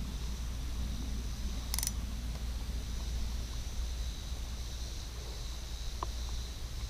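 Outdoor ambience of low wind rumble on the microphone, with a steady high-pitched hum above it. There is one sharp click a little under two seconds in and a faint tick near the end.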